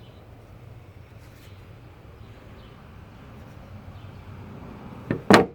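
Faint steady background noise with a low hum, then a short knock and a louder sharp knock just after five seconds in.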